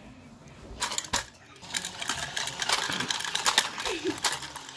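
Motorized dog coin bank's small mechanism, starting about a second and a half in after a couple of single clicks, and then running with a fast clicking clatter.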